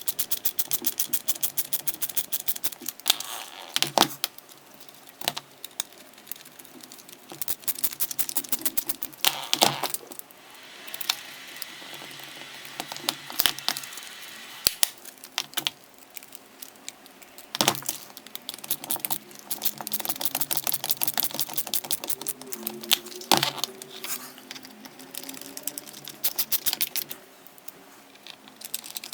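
Hand reassembly of a cordless drill: runs of fast, even clicking like a ratcheting screwdriver, with small plastic and metal parts rattling and a few sharper knocks as pieces are fitted together.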